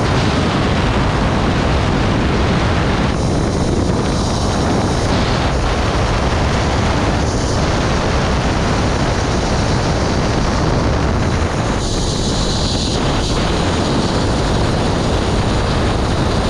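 Zip-line ride at speed: wind rushing over the microphone together with the trolley's pulleys running along the steel cable, a loud, steady rushing noise.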